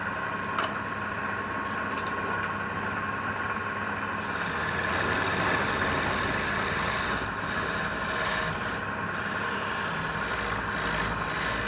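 A small motor-driven tool running steadily while it works wood, with a rubbing, abrading noise; a higher whine comes in about four seconds in.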